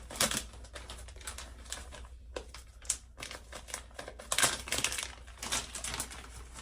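Plastic packaging crinkling and rustling as it is handled, a dense run of quick irregular crackles.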